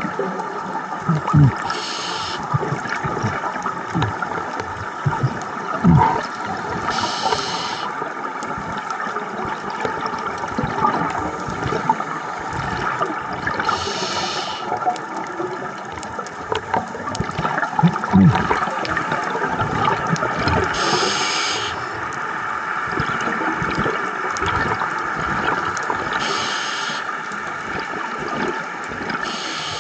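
Scuba diver breathing underwater through a regulator: a short hiss of each breath about every five to seven seconds, with bubbling and gurgling of exhaled air between, over a steady underwater rush.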